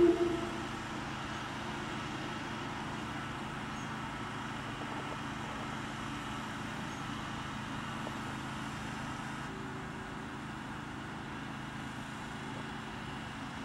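Steady hum of distant road traffic, an even outdoor background with no distinct events.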